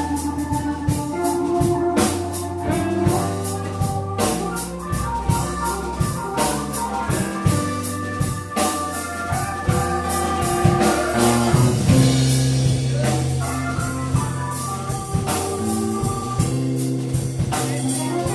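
Live blues band playing a slow blues instrumental: drum kit, electric bass, electric guitar and organ-toned keyboards.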